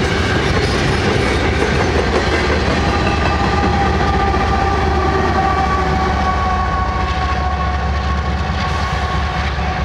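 Freight train passing close: double-stack intermodal cars rolling and clicking over the rails, then the rear distributed-power GE ES44AC locomotive going by with a heavy diesel rumble. A steady whine from the locomotive, in two tones, sinks slightly in pitch as it passes.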